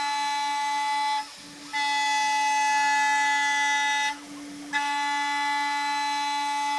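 CNC router spindle and end mill cutting aluminum: a loud, high, steady whine with many overtones. It comes in three stretches, broken twice by a short half-second drop as the cutter leaves the cut, over a lower steady spindle whine.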